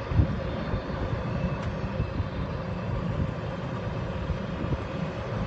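Golf cart driving along a dirt trail: a steady low rumble from the cart and its wheels, with a faint steady whine above it and small irregular bumps.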